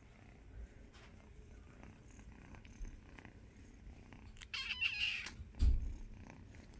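Orange tabby kitten purring steadily while being petted, with a short high-pitched meow about four and a half seconds in. A low thump follows just after and is the loudest sound.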